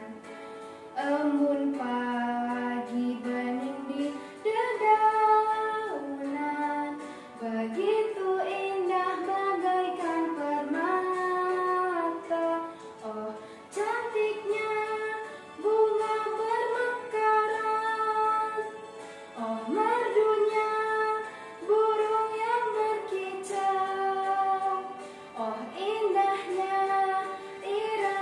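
A girl singing a children's song with instrumental accompaniment, in melodic phrases a few seconds long with short breaths between them.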